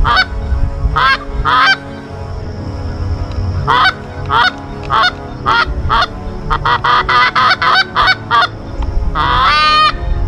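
Geese honking: a series of short, nasal calls that come faster in the middle, ending on one longer drawn-out call near the end.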